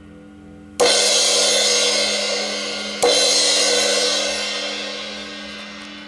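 Zildjian A Custom crash cymbal struck twice with a drumstick, about two seconds apart. Each crash rings out bright and decays slowly.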